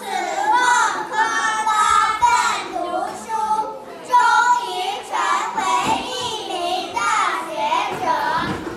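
A group of young children singing together on stage, held notes in a simple melody sung as a chorus.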